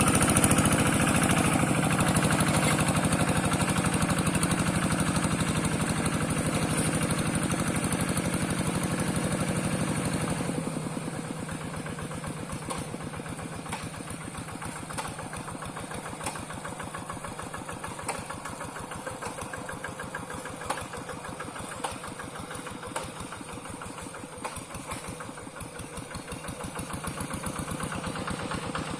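Two-wheel hand tractor's single-cylinder diesel engine running hard, then dropping suddenly about ten seconds in to a quieter, steady idle with a fast, even firing beat.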